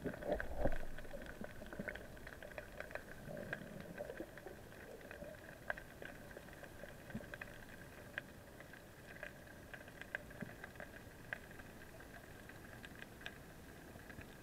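Underwater ambience picked up by a waterproof camera on a speargun: scattered faint clicks and crackles over a steady hiss. There is a louder knock and rumble in the first second.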